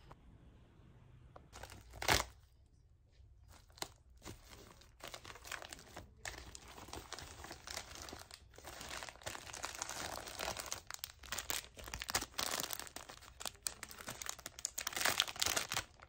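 Packaging being crinkled and torn open by hand: irregular crackling rustles, with one sharp, loud crackle about two seconds in and denser handling through the second half.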